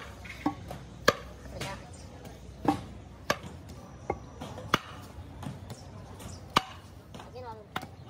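Irregular sharp metal knocks and clanks, about eight, some with a brief ring, as the heavy steel end flange and gland of a bulldozer hydraulic cylinder are worked loose and handled.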